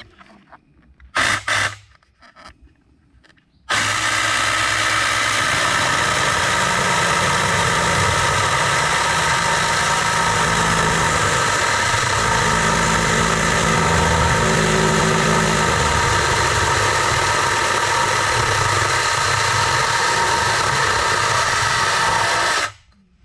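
Mini electric chainsaw: two short bursts on the trigger about a second in, then running steadily with a whine for about nineteen seconds as it cuts into a wooden plank, stopping suddenly near the end.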